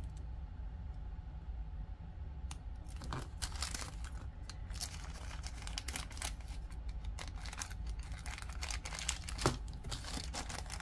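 Small plastic jewelry baggie crinkling and rustling as it is handled and opened. A dense run of small crackles starts about two and a half seconds in.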